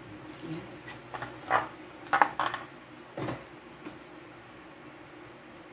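A few short clinks and knocks of kitchen utensils and dishes being handled, loudest between about a second and a half and two and a half seconds in, over a steady low hum.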